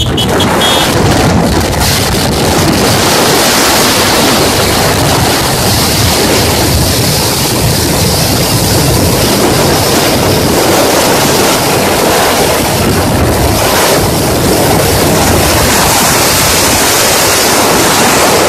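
Wind buffeting the microphone of a camera on a moving motorcycle: a loud, steady rush that buries the bike's engine and tyre noise.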